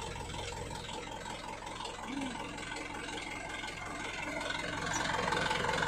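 Tanker truck's engine idling steadily, with an even low pulse, growing somewhat louder over the last couple of seconds.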